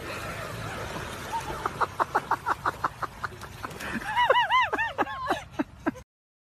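Animal calls over a steady low outdoor rumble. First comes a quick run of short high calls, about five a second, then several rising-and-falling cries. The sound cuts off suddenly near the end.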